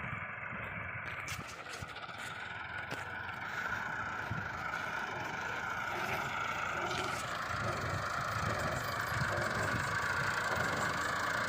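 A machine engine running steadily, with a low rumble and a few faint clicks.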